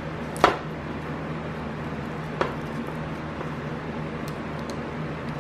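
Two sharp clicks from handling a twisted wire splice and heat-shrink tubing, the louder about half a second in and a fainter one about two seconds later, over a steady low hum.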